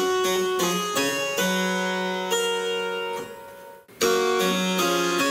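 Harpsichord playing a phrase with only a few notes at a time, which dies away about three and a half seconds in; a moment later it comes back slightly louder with fuller chords of more notes at once. Adding notes is how a harpsichord is made to sound fuller, since its plucked strings sound at the same volume however hard the keys are pressed.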